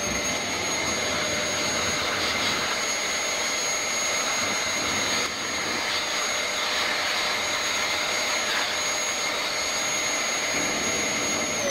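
Handheld vacuum cleaner running steadily, a high motor whine over the rush of suction, as it vacuums dust off the robot vacuum's brush guard. The motor winds down, its pitch falling, as it is switched off at the very end.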